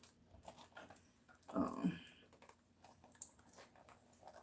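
Hands pressing a self-stick rhinestone strip onto a small round plastic piece: faint, scattered light clicks and taps of fingernails and plastic. A brief voice is heard about halfway through.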